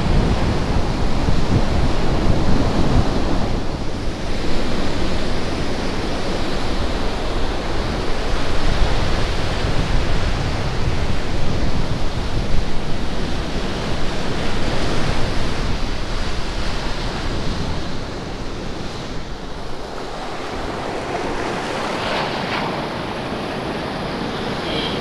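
Sea surf breaking and washing over shoreline rocks, a steady rushing wash that swells and eases, with wind rumbling on the microphone.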